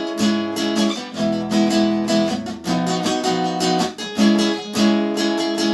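Acoustic guitar strummed, changing chord about every second or so: the instrumental introduction to a worship song, before the singing comes in.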